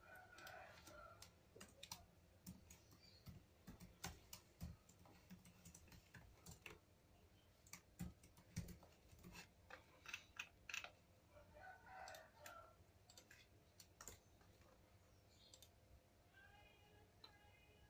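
Laptop keyboard keys tapped and a computer mouse clicked, in irregular runs of light clicks. A faint call with a steady pitch sounds in the background near the end.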